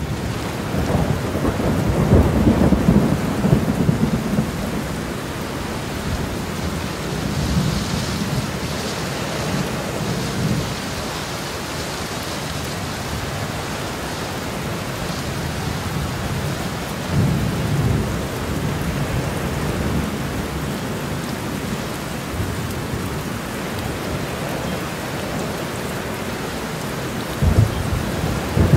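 Steady rain storm with thunder: a loud, low rolling rumble in the first few seconds, another about two-thirds of the way through a quieter stretch of plain rain, and a third near the end.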